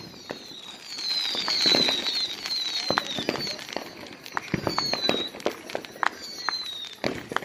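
Consumer fireworks going off around the neighbourhood: many scattered pops and bangs, with high whistles that slide down slightly in pitch.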